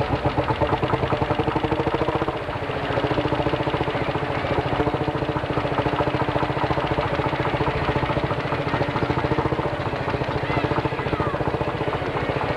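Lanz Bulldog tractor's single-cylinder two-stroke hot-bulb engine running with a rapid, even beat.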